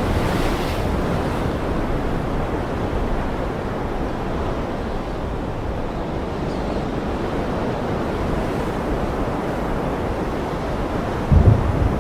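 Ocean waves breaking in a steady, continuous wash of surf. A short, loud, low rumble of thunder cuts in near the end.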